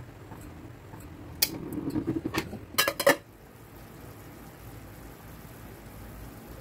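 A few sharp metallic clinks and clanks of an aluminium cooking pot on a gas stove, bunched between about one and a half and three seconds in. Under and after them, chicken soup bubbles steadily in the pot, coming up to the boil.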